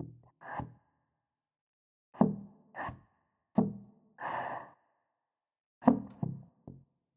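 Sparse music: short struck, guitar-like notes that ring briefly and die away, played in small groups with pauses between, and a short breathy sound about four seconds in.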